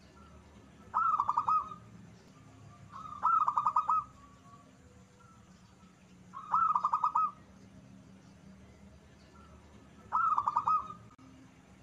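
Zebra dove (perkutut) cooing: four short phrases of quick, staccato coos, each under a second long and a few seconds apart.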